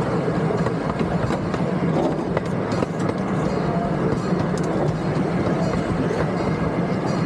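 Miniature park train's open passenger cars rolling along the track: a steady low rumble with a few faint clicks.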